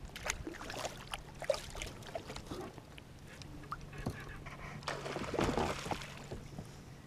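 Water lapping and splashing against a plastic kayak hull, with scattered small clicks and knocks. There is a louder stretch of splashing about five seconds in.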